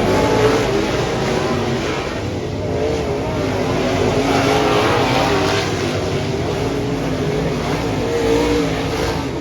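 Dirt-track modified race cars running on the track, their engines revving up and down continuously.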